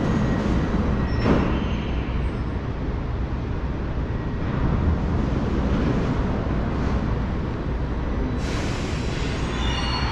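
Metro station ambience: a steady low rumble with a faint high whine from a metro train standing at the platform, and a burst of hissing starting about eight and a half seconds in.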